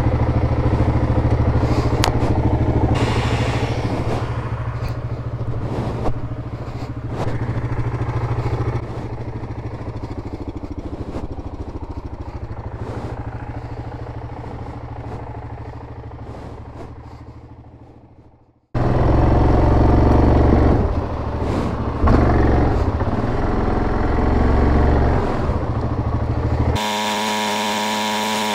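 Yamaha Grizzly 700 ATV's single-cylinder engine running as it rides a rough trail, with scattered knocks and clatter. About two-thirds of the way through the sound fades away to nothing, then comes back suddenly and louder, and near the end it changes to a steadier, evenly pitched engine note.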